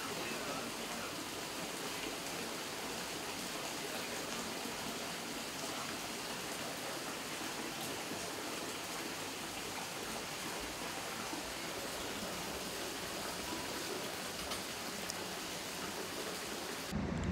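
Steady rush of running water, an even hiss with no distinct splashes.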